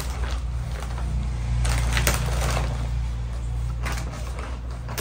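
Cloth being handled: scattered rustling and small clicks, thickest about two seconds in, over a steady low rumble.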